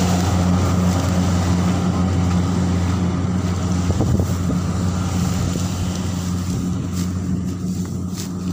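Rice combine harvester's engine running steadily with a deep, even hum, growing a little fainter toward the end.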